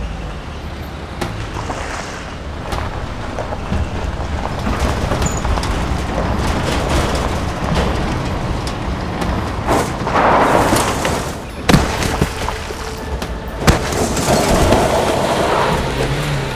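Tense dramatic film score with deep booming hits, mixed with a car rolling in over gravel; two sharp knocks stand out a little past the middle.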